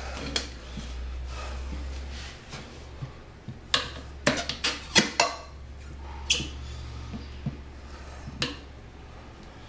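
Steel tire irons clinking and knocking against a motorcycle wheel rim as the tire bead is pried off, with a quick run of sharp clinks in the middle and a few single ones before and after, over a low steady hum.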